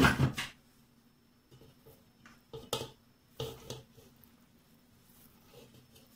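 Sautéed grated carrot being scraped out of a frying pan into a stainless steel pot: a louder knock at the start, then a scattering of soft knocks and scrapes of metal against metal.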